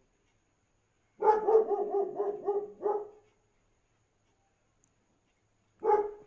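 A dog barking in a quick run of about seven short barks over two seconds, then one more bark near the end, during a rough courtship tussle between two dogs.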